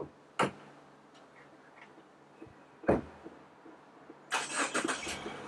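Wolverine tin toy adding machine worked by pulling a finger strip down and letting it go: two sharp metallic clacks about two and a half seconds apart, then a quick clattering rattle lasting just under a second near the end.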